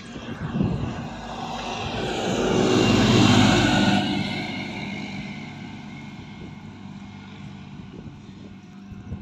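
Tractor towing a rotary hay tedder passing close by: its diesel engine and the rattle of the implement swell to a peak about three seconds in, then fade. A steady aircraft drone runs underneath.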